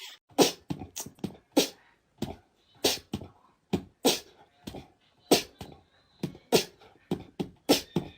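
Cat hissing and spitting in short, sharp bursts, about two a second at an uneven pace, as in a cat fight.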